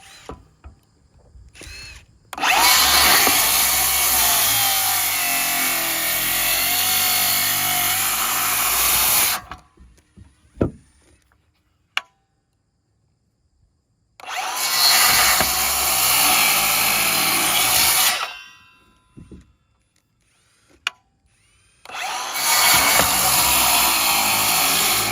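A power tool running in three long bursts, each starting as the motor spins up and stopping abruptly, with a couple of sharp clicks in the quiet gap after the first burst.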